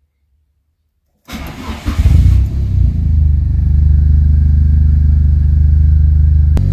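Turbocharged Honda Civic four-cylinder (D15Z4 block, D16Z6 single-cam head) cranking over about a second in and catching on a cold start, after sitting unused for a while, then settling into a steady idle. A sharp click near the end.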